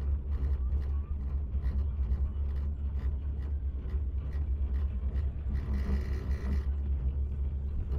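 Steady low rumble while riding up in a bubble-canopy chairlift, with a brief faint rattle about six seconds in.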